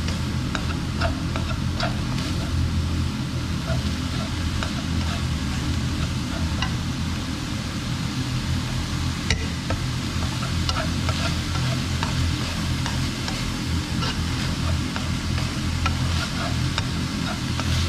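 Minced pork, shiitake mushrooms and onion sizzling in a nonstick wok as they are stirred with wooden chopsticks, with frequent light clicks of the chopsticks against the pan. A steady low hum runs underneath.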